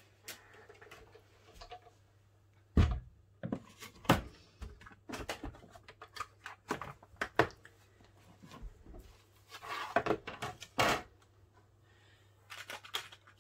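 Handling knocks and clatter as a manual die-cutting machine is set down and its plastic cutting plates are laid in and slid about. A heavy thump about three seconds in, then scattered irregular knocks and taps, with a louder pair a little after ten seconds.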